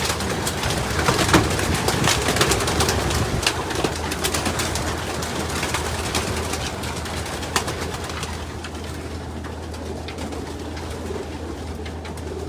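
Racing pigeons cooing, with sharp flurries of wing flaps and scuffling that are busiest in the first few seconds while a bird is being caught, then settle down, over a low steady hum.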